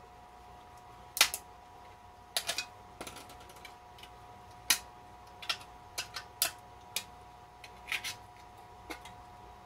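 Small hand snips cutting through a thin metal jar lid to free its threaded ring: a dozen or so sharp, irregular snips, some in quick pairs.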